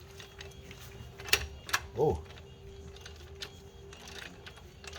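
Ratchet wrench with a digital torque adapter clicking as it turns the flywheel bolts, a few sharp metallic clicks with two louder ones about a second and a half in, over a faint steady tone.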